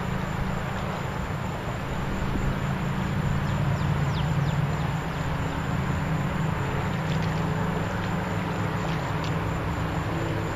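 A boat engine running steadily with a low hum, under a hiss of wind and water; a few short high chirps come around the middle.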